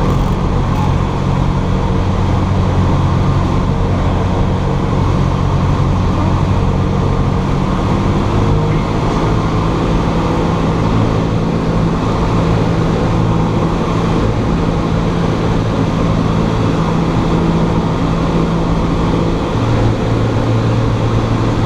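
Cessna 172's piston engine and propeller droning steadily in flight. The pitch of the drone shifts slightly about a third of the way in and again near the end, as the power setting changes.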